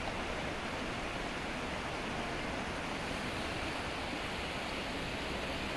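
Fast-flowing, muddy river rushing steadily over rocks.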